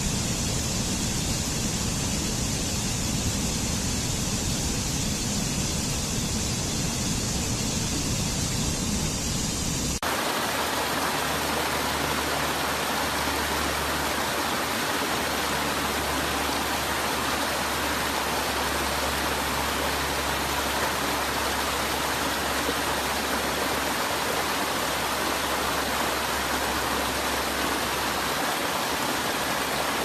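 Rushing water of a rocky mountain stream cascading over small falls: a steady, even hiss. The sound changes abruptly about ten seconds in, as a different cascade takes over.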